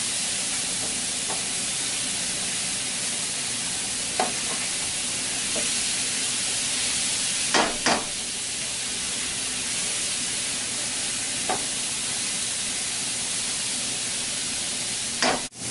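Cauliflower rice sizzling steadily in a frying pan over moderate heat, with a few short clicks of a utensil against the pan, two of them close together about eight seconds in.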